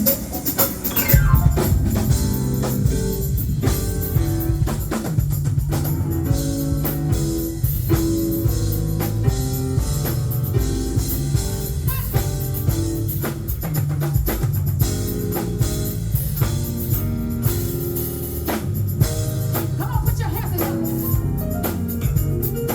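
Live gospel band playing an instrumental lead-in, a drum kit keeping a steady beat over the other instruments, before the vocals come in.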